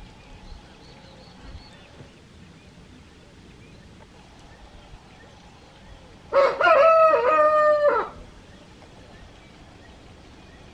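A rooster crowing once, a single call of about two seconds beginning about six seconds in, with faint bird chirps in the background.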